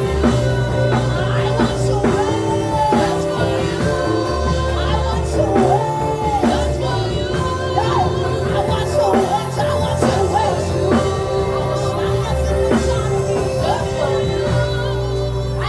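Live worship music: held chords over a bass line, with a melody that bends and glides, partly sung.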